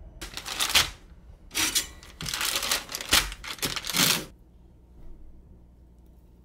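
Crinkling and rustling of a wrapper being handled or torn, in three noisy bursts, the last about two seconds long and ending a little past four seconds in.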